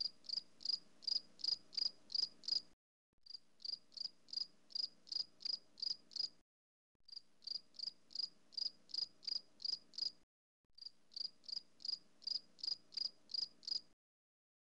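Cricket chirping added as a sound effect: four runs of evenly spaced high chirps, about four a second, each run about three seconds long and separated by short breaks, with a faint low hum beneath. It starts and stops abruptly out of dead silence, the usual 'crickets' gag for an awkward silence.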